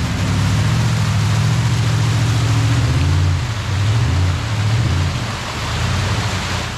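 Off-road rock buggy engine running at low revs, its pitch shifting about halfway through, over a steady rushing hiss.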